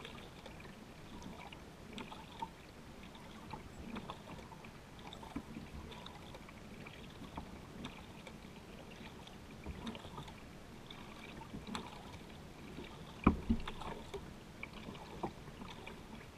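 Kayak paddling: light splashes and drips of paddle blades in the water, about every second or two, over a low lapping of water. A couple of louder knocks come about three seconds before the end.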